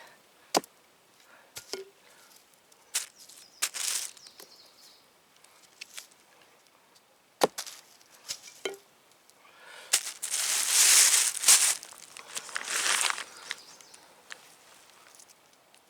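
Dry leaves rustling as they are brushed aside by hand, with scattered sharp taps and knocks. The rustling is loudest for a few seconds starting about ten seconds in.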